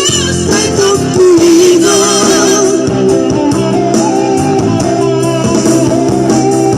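Vocal trio singing a song in harmony over guitar accompaniment, the voices holding long wavering notes.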